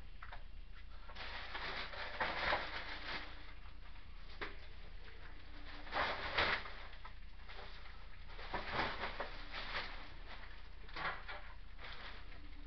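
Kitchen items being handled: clear plastic packaging and a metal baking tray, giving several short bursts of rustling and light clatter, loudest about two and six seconds in.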